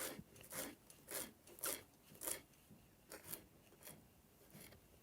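Knife cutting fresh coriander leaves and stems finely, in short soft strokes about twice a second that grow fainter and sparser after the middle.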